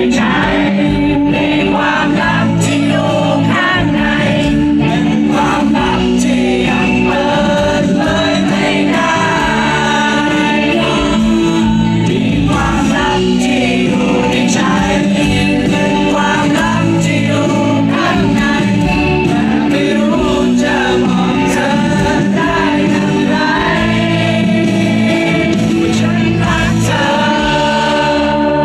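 Live band playing a pop-rock song through a concert PA: electric guitars, bass and drums, with singing over them.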